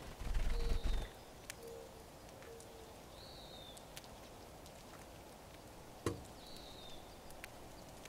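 Small finches at seed feeders give three short, high, downward-sliding chirps, over scattered light clicks typical of seeds being cracked. A low rumbling bump fills the first second, and a sharper knock comes about six seconds in.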